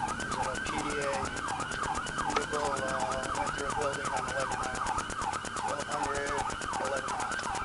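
Police car siren in yelp mode: a fast rising-and-falling wail, repeating about three times a second without a break.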